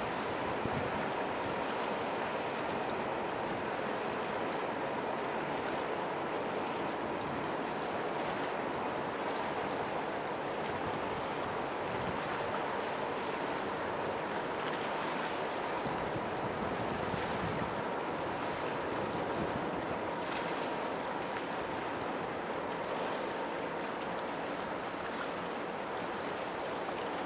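Steady rushing noise of wind and water at the shore, with a faint steady tone running underneath.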